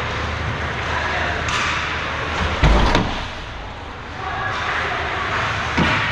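A loud slam against the hockey rink's boards and glass about two and a half seconds in, ringing briefly, then a smaller knock near the end, over the arena's background chatter.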